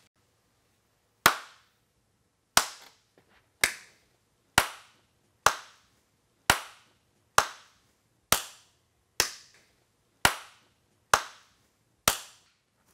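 One person clapping slowly on their own, about one clap a second, each clap a single sharp smack.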